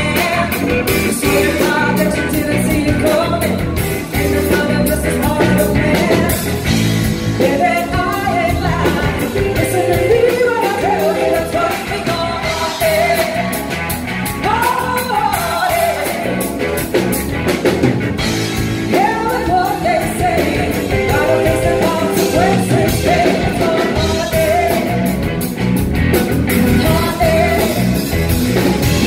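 Live blues-rock band playing: electric guitar, electric bass and drum kit, with a woman singing lead.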